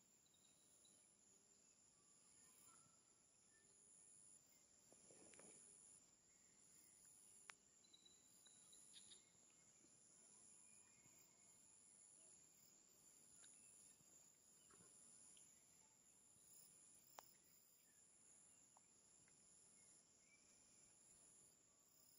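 Faint forest ambience: a high-pitched insect chorus pulsing about once a second over a steady high hum, with a few short bird chirps and two sharp clicks.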